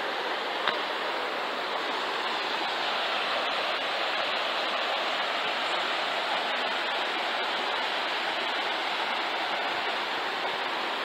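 Steady rushing of the Gravina torrent flowing through the rocky canyon floor, a constant even hiss of water. One brief sharp click sounds about a second in.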